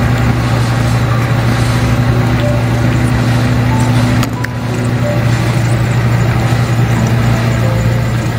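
A steady low hum, like an idling engine, with a brief dip and click about four seconds in.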